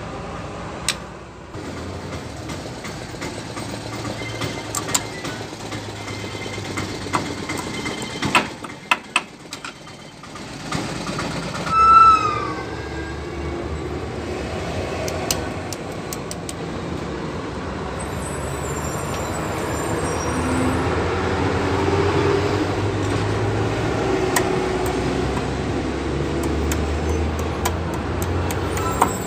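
Light metal clicks and clinks from a hand pick working at a tapered roller bearing in a rotavator gearbox gear: a cluster about a third of the way in and more at the end. Underneath is a steady low vehicle-engine rumble that grows through the second half. A short falling squeal near the middle is the loudest sound.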